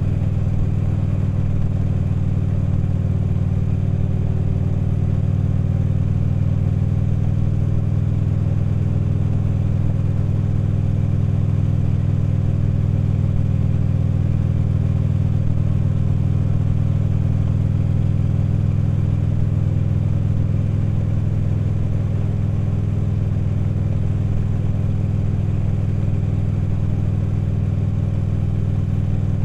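Harley-Davidson V-twin motorcycle engine running at a steady cruising speed, its pitch holding level throughout.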